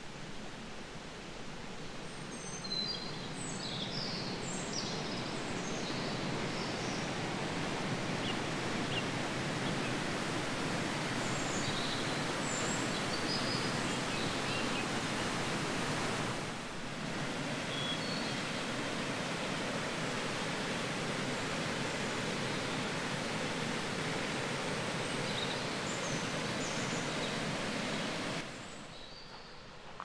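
Steady rush of mountain water, with small birds chirping above it now and then. The water noise dips briefly about halfway and drops off sharply near the end.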